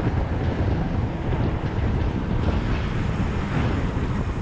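Wind rushing over the microphone of a riding motorcycle, with the bike's engine and road noise running steadily underneath.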